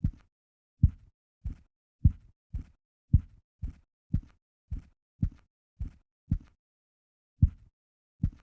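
Typewriter keys struck one at a time at a slow, steady pace, about two dull thumping keystrokes a second, each with a faint click on top, with a short pause about seven seconds in.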